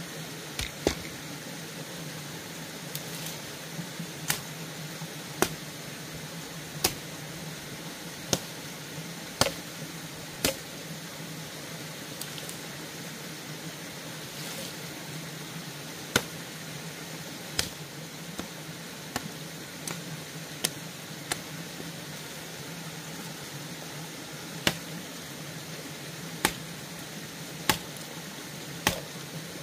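Sharp knocks, roughly one every one to one and a half seconds at an uneven pace with a pause of several seconds midway, over a steady low hum.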